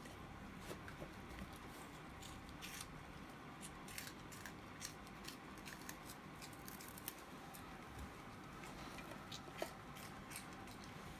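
Faint, scattered crisp clicks and crackles of crunchy snack puffs being munched and handled, irregular throughout.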